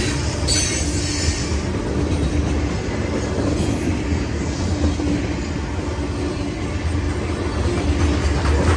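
Loaded coal train's steel hopper cars rolling past on the rails: a steady, heavy rumble of wheels on track.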